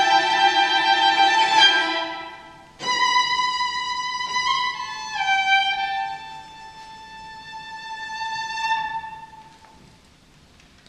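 Violin playing slow, long held notes. A closing phrase starts about three seconds in, steps down through a few sustained pitches and dies away near the end.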